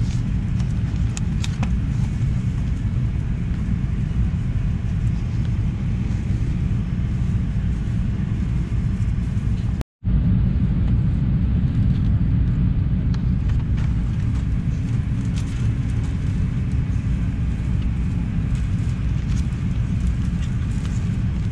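Steady low rumble of an Airbus A380's economy cabin, with a few light rustles of magazine pages near the start; the sound cuts out for a moment about ten seconds in.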